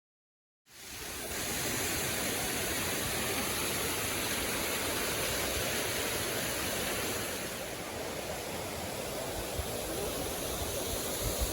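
Steady, even rush of a waterfall's falling water. It starts abruptly about half a second in, out of dead silence.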